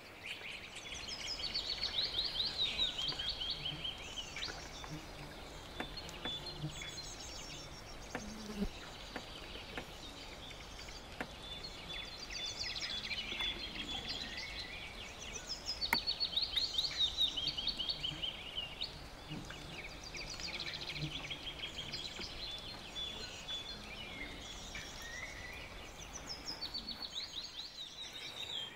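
Songbirds singing in woodland: repeated fast trilling phrases, one every few seconds, with a louder burst of song about halfway through.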